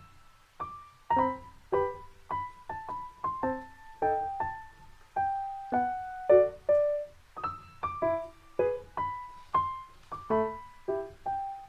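Background music: a gentle piano melody of single struck notes, about two a second, each ringing and fading.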